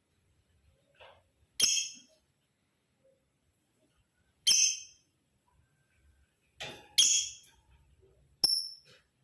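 Male lovebird giving five short, high-pitched chirps spaced a second or more apart, two of them in quick succession about seven seconds in.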